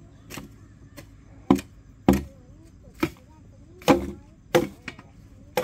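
Chopping: a series of about eight sharp strikes at an uneven pace, roughly one every half second to second.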